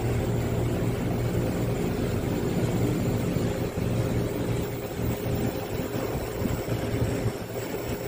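Samsung 1 HP inverter air conditioner outdoor unit running with its compressor on: a steady hum made of several low tones, holding even throughout.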